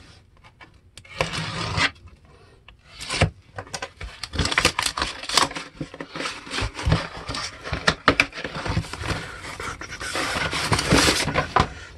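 Cardboard record mailer being torn and pried open by hand: cardboard rubbing, scraping and tearing, with many sharp crackles. It starts in short bursts and becomes continuous from about four seconds in.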